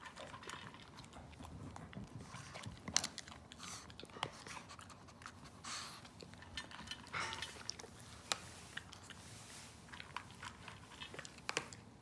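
Pekingese dog eating dry kibble, crunching and chewing in irregular bites, with the sharpest crunch about three seconds in.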